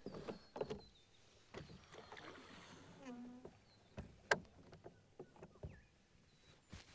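Light knocks and clicks of gear being handled in a small boat, with the sharpest knock just after four seconds. A brief falling squeak comes about three seconds in.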